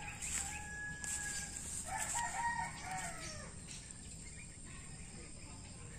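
Rooster crowing: one crow about two seconds in, lasting about a second and a half and falling in pitch at the end.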